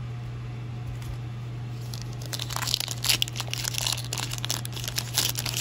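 Foil wrapper of a Topps baseball card pack being crinkled and torn open by hand. The crackling and rustling start about two seconds in, over a steady low hum.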